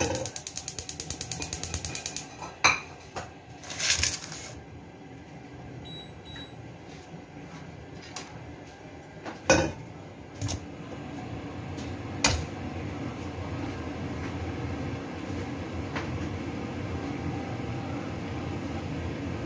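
Kitchen utensil sounds: a quick run of scraping strokes of a utensil against a wok, then a few scattered clinks and knocks of the pan and a metal spatula. A steady low hum sets in about two-thirds of the way through.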